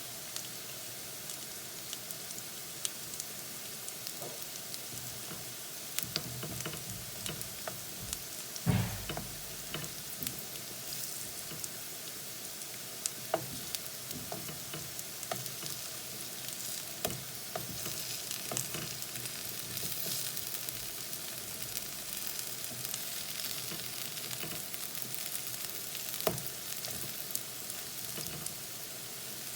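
Chickpea-flour-battered plantain pieces sizzling in shallow oil in a pan, with frequent light spatula clicks and scrapes as the pieces are turned over. One louder knock comes about nine seconds in.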